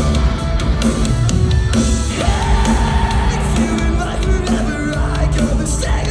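Emo band playing live at full volume, with distorted electric guitars, pounding drums and yelled, shouted vocals.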